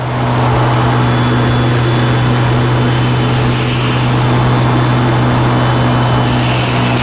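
Tigercat 822D tractor with a DAH-150 mulching head running steadily, a loud continuous drone with a deep hum over a wide rush of noise.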